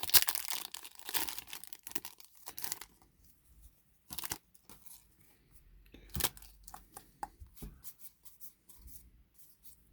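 Foil booster pack wrapper crinkling and tearing for the first three seconds or so, then scattered light clicks and snaps of trading cards being handled.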